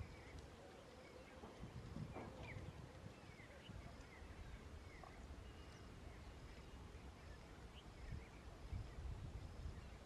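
Quiet field ambience with faint, scattered short bird chirps and a faint, evenly repeating high pulse.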